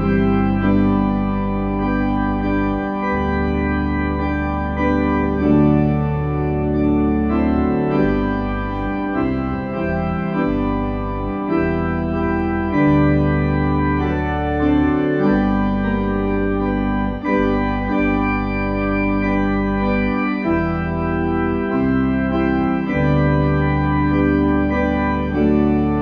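Organ playing slow, sustained chords over held bass notes, with the harmony changing every second or two.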